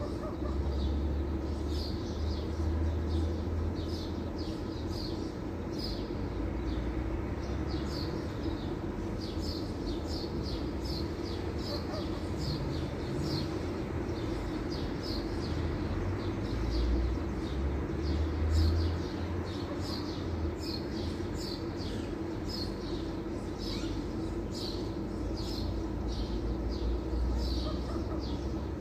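A bird chirping over and over in short, high chirps, over a steady low hum and rumble.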